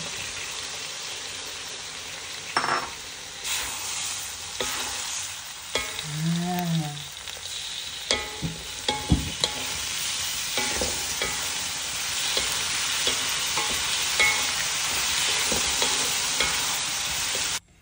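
Salted fish and pineapple frying in hot oil, sizzling steadily while a spatula stirs and scrapes through it, with short clinks against the pan now and then.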